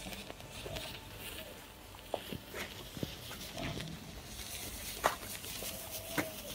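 Rows of packed matchsticks burning and catching one after another, a hissing crackle broken by a few sharp pops.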